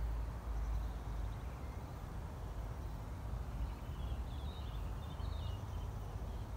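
Open-field ambience: a steady low rumble of wind with a haze of rustling, and a few faint, high bird chirps between about four and five and a half seconds in.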